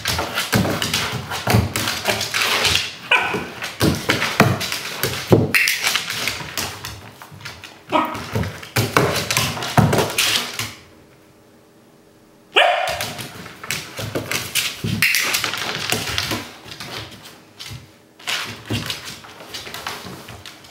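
A Finnish Lapphund barking and whining in short bursts, with its claws clicking and tapping on a wooden floor as it moves about. Everything drops away for about a second and a half midway.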